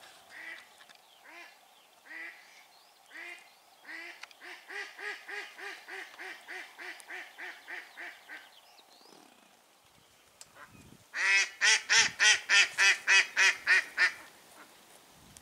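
Hen duck quacking: a live decoy duck gives a run of quacks that starts sparse and quickens to about three or four a second, then stops. After a pause of a couple of seconds, a duck call sounds a much louder, closer run of about ten quacks, the loudest part.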